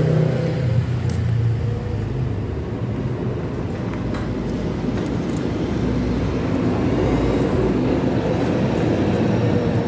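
Yamaha Mio Sporty's single-cylinder four-stroke scooter engine running steadily at idle.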